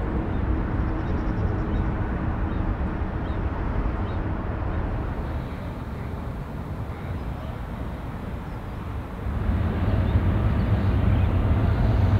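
Boeing twin-jet airliners landing, heard as a steady low engine rumble with an abrupt change partway through. From about three-quarters of the way in it grows louder, with a faint rising engine whine.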